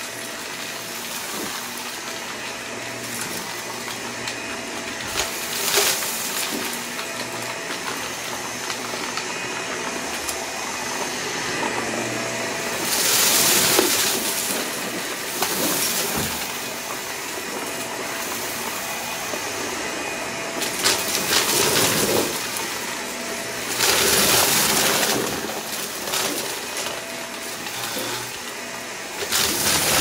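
Hoover vacuum cleaner running steadily while picking up a test mess, with a few louder rushes of noise along the way.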